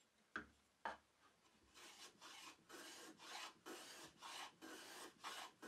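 Block plane shaving the chamfered corner of a hardwood base in short, quick passes: a faint, rhythmic scraping of the blade on the wood, about two or three strokes a second, starting a couple of seconds in after two soft knocks.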